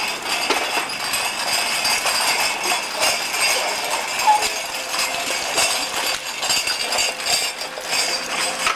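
Light footsteps and small scuffs and knocks of toddlers moving about on a paved courtyard, over a steady hiss.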